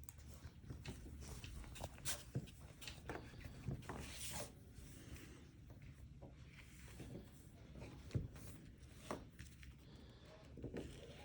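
Faint, scattered clicks and light taps from handling a phone and small repair parts and tools, with a brief rubbing sound about four seconds in.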